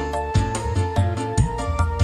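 Live music played on an electronic keyboard, with a drum beat about twice a second under a held melody line.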